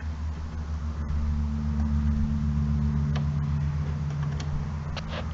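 A steady low hum, with a few faint clicks and scrapes of a metal spring clip being worked onto a gas strut's ball socket.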